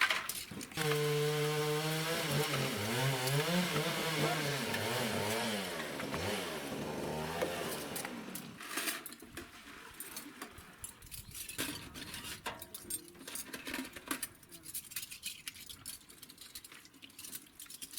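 A small motor runs for about seven seconds, its pitch wavering up and down before it fades out. Scattered knocks and clicks of handling follow.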